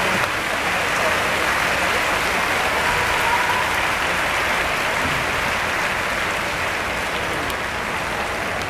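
Large stadium crowd applauding steadily from the stands, a dense wash of clapping that eases slightly toward the end.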